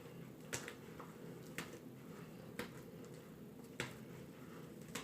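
Sticky slime being kneaded by hand, giving faint sharp pops and clicks about once a second.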